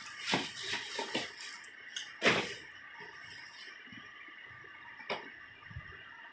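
Cardboard shoeboxes being handled and slid about: a few short scrapes and knocks, the loudest a little over two seconds in and another near five seconds.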